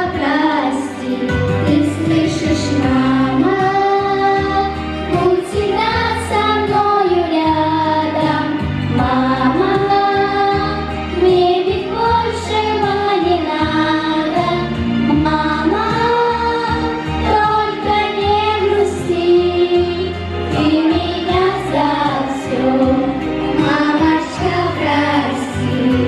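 A group of young girls singing a song together through microphones, over instrumental accompaniment with a steady bass line.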